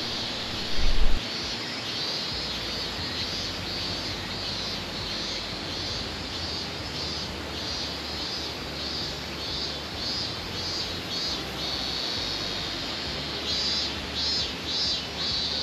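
Cicadas shrilling in a steady high drone, breaking into several pulsing phrases near the end. A brief low thump about a second in.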